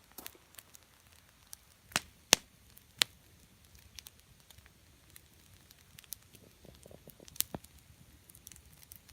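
Wood campfire crackling: scattered small ticks and a few sharp pops, the loudest about two seconds in and another near seven and a half seconds.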